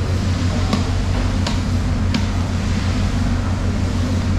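Three sharp knocks about three-quarters of a second apart in the first half, a knife striking the cutting board while bluefin tuna is cut, over a steady low machine hum.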